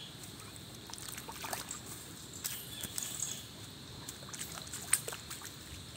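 Light splashing and sloshing of shallow water as a container is dipped and handled at the water's edge, with scattered small clicks and one sharper knock about five seconds in.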